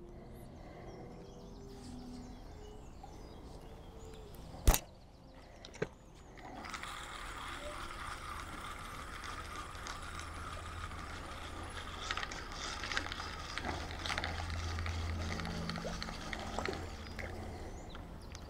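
A loud sharp click about five seconds in and a smaller one a second later, then a fishing reel being wound: a steady whirr with light ticking from its mechanism.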